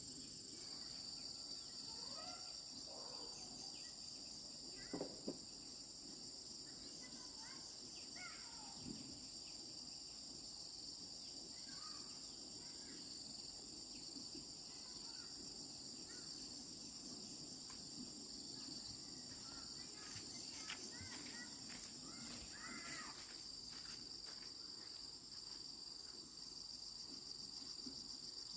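Steady high-pitched insect chorus, crickets or similar, with scattered short bird chirps over it and a couple of brief knocks about five seconds in.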